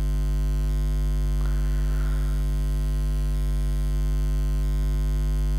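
Steady electrical mains hum, a constant low buzz with many overtones, at an even level throughout; a faint short hiss about a second and a half in.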